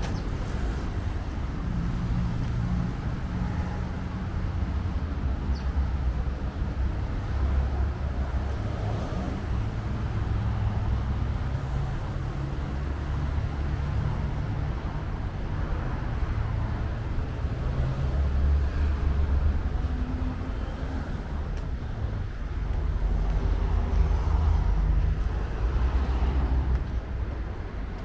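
Street traffic: a steady low rumble of passing cars that swells and eases, loudest about two-thirds through and again near the end.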